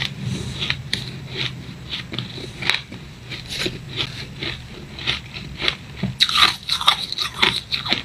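Close-up crunching of fine, snowy shaved ice being bitten and chewed: a steady run of short crunches that thickens into a quick flurry about six seconds in.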